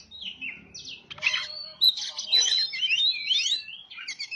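Oriental magpie-robin (kacer) singing a varied, rapid song of clear whistles and sharp chirps, a kacer lure call. It is sparser at first and grows busier and louder from about a second in.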